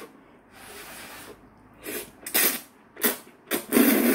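Thick kalguksu (knife-cut wheat) noodles, eaten without broth, being slurped in a series of hissing sucks, softer at first and louder toward the end.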